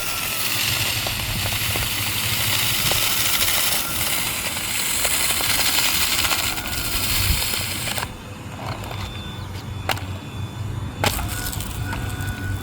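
Haimeec cordless stick vacuum running with a loud hiss as it sucks up sand, grains crackling through it. About eight seconds in the hiss drops away, leaving a fainter steady whine and a couple of sharp clicks.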